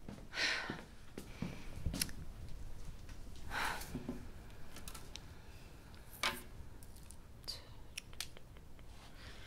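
A few short swishes of paper worksheets being laid down on school desks, with small handling clicks between.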